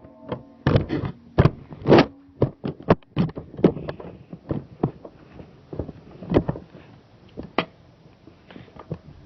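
A rapid, irregular run of sharp knocks and thuds, thickest in the first three seconds and then thinning out to a few scattered hits.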